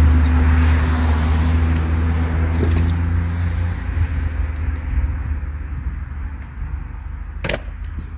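A car driving past on the road, its engine hum and tyre noise fading away over the first few seconds. A sharp knock comes about seven and a half seconds in.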